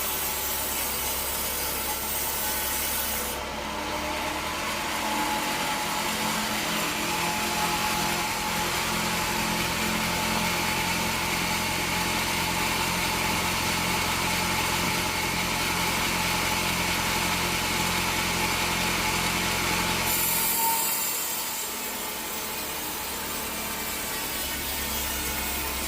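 Bandsaw sawmill running and cutting through a teak log: a steady machine hum under the rasp of the blade in the wood. The sound shifts about three and a half seconds in and again near twenty seconds.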